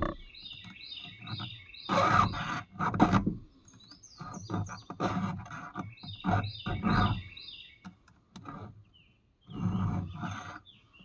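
A file rasping across chainsaw chain teeth in short, uneven strokes, about a dozen over the stretch with a pause near the middle. A bird sings repeated short chirps, each phrase stepping down in pitch.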